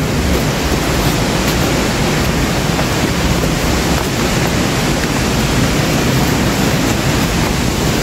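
Waterfall close by: a steady, loud rush of falling water.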